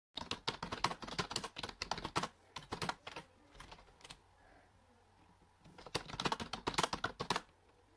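Fast typing on a computer keyboard: a quick run of key clicks, a lull of about a second and a half around the middle, then a second burst of typing that stops shortly before the end.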